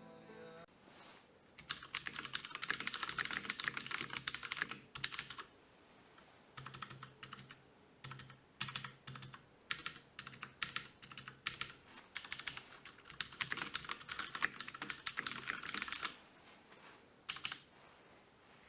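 Typing on a Ducky Shine 3 TKL mechanical keyboard with clicky Cherry MX Blue switches: two fast runs of rapid keystrokes with a slower stretch of separate key presses between them, and a few last presses near the end.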